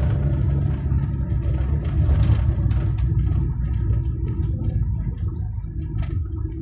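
Steady low rumble of heavy engines at a road construction site, with a few sharp clanks about two to three seconds in and again near six seconds.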